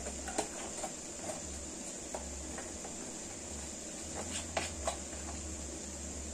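Plastic food container being handled and its lid worked open over a stone mortar: a few light clicks and taps, several of them close together about four and a half seconds in, over a steady low hum.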